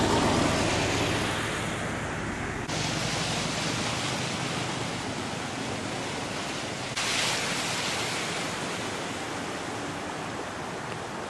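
Fast-flowing floodwater rushing across a road, a steady rushing noise that changes abruptly twice. At the start a vehicle drives through the water and throws up spray.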